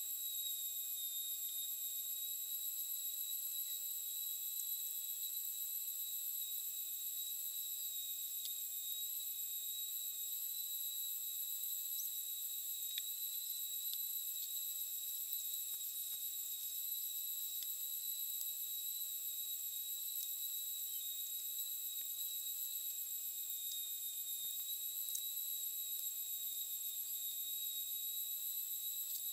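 Creality Falcon 2 40-watt diode laser engraver running an engraving pass, giving a steady high-pitched electronic whine made of several tones at once, with a faint hiss and an occasional tiny tick.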